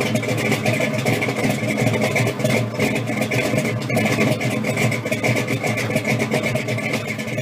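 An engine idling steadily with a fast, uneven pulse.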